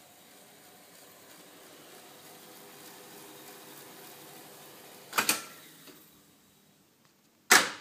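Akai GX-646 reel-to-reel tape deck fast-winding tape with a faint steady whir. About five seconds in, a loud mechanical clunk from its transport, after which the winding sound dies away; a second sharp clunk comes near the end.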